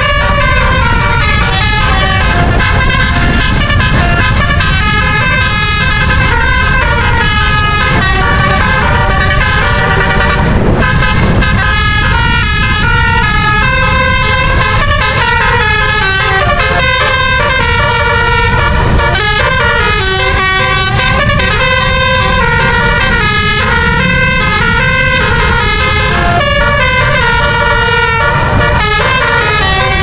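A bus's musical 'telolet' air horn, a set of twelve roof-mounted trumpets, playing a continuous melody that steps from note to note with several notes sounding at once. A steady low rumble runs underneath.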